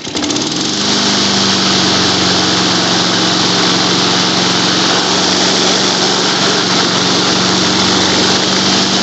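Honda lawn mower's single-cylinder engine running on a cold start, picking up to a steady speed in the first second and then holding it, with the automatic choke working.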